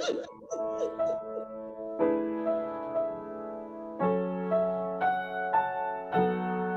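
Slow piano music, with a new chord struck about every one to two seconds. A short, louder sound is heard right at the start.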